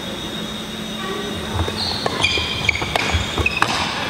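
Badminton rally on a wooden sports-hall court: shoes squeak and thud on the floor as the players move, with a couple of sharp racket strikes on the shuttlecock in the second half.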